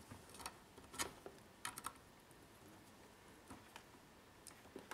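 Faint clicks and rattles of cables being handled and a USB plug pushed into a socket on the back of a metal-cased headphone amplifier: a few sharp clicks in the first two seconds, then a couple of small ones near the end.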